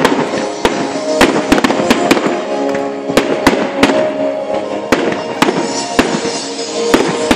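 Fireworks display: an irregular run of sharp bangs and crackles from bursting aerial shells, over music.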